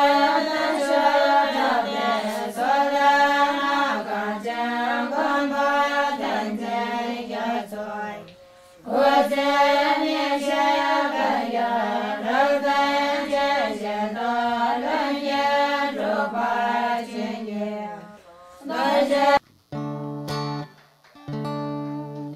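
Music track: sustained singing in long phrases, with a brief break about a third of the way in. Near the end the singing stops and short plucked guitar notes begin.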